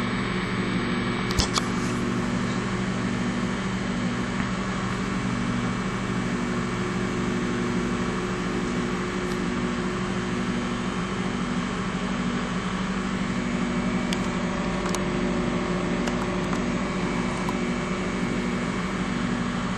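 Microwave oven running, a steady low electrical hum from its magnetron and fan while a bar of soap heats and puffs up inside. A few short clicks about a second in and again near the middle.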